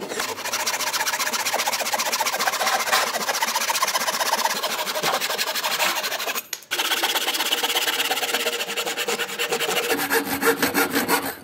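Handsaw cutting through a wooden board with quick, rasping back-and-forth strokes. There is a brief pause about two-thirds of the way through, then the strokes resume until the cut is finished near the end.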